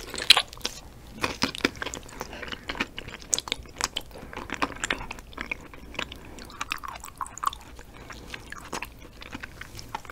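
A piece of raw yellow stingray liver bitten and then chewed close to the microphone: irregular, soft, wet clicking mouth sounds, with the loudest one, the bite, just after the start.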